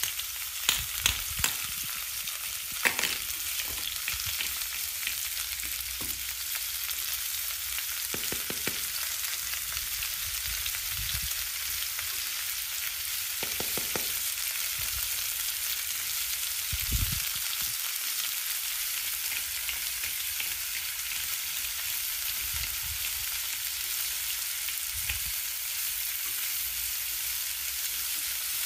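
Steady sizzling of an egg frying in a pan. A few light clicks and knocks of plastic toy utensils come through it, most of them in the first couple of seconds.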